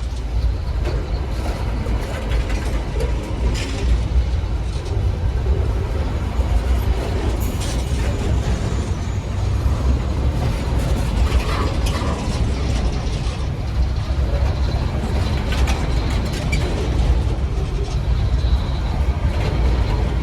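Freight train pulled by GE ES43BBi diesel-electric locomotives working hard up a grade. A deep, steady engine rumble under load runs throughout, with scattered clanks and rattles from the train.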